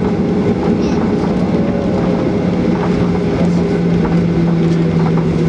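Inside the cabin of a taxiing Boeing 737-800, its CFM56-7B engines run at low taxi power: a steady low drone with a higher hum over an even rush of cabin noise.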